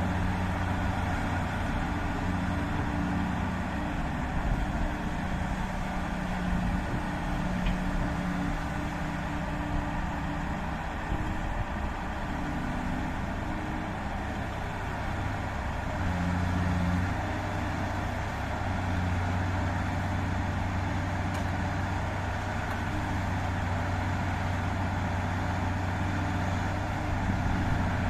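Heavy diesel engines of a large mining excavator and haul trucks running steadily, a deep continuous hum that shifts slightly in pitch as the machines work.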